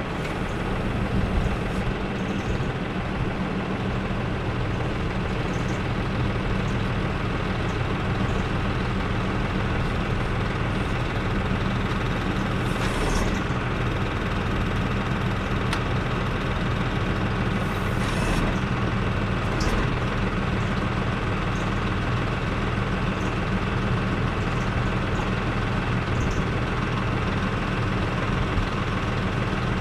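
2020 Case IH tractor's diesel engine idling steadily, with a few brief clicks about halfway through.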